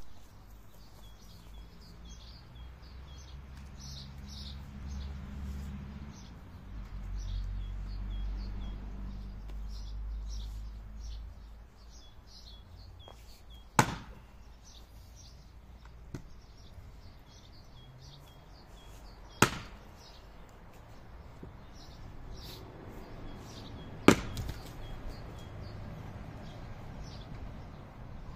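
An axe splitting a log on a chopping block: three sharp strikes several seconds apart, each a single crack of the blade into the wood. Small birds chirp throughout, over a low rumble during the first half.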